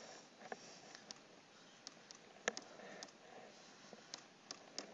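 Faint, irregular clicks, about half a dozen, from a computer pointer clicking the keys of an on-screen TI-84 calculator emulator; the loudest comes about halfway through.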